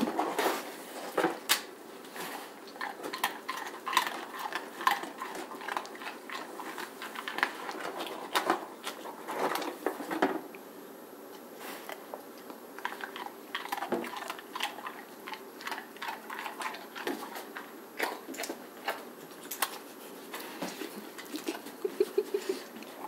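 Golden retriever chewing a dog biscuit treat: irregular sharp crunches with short pauses between them.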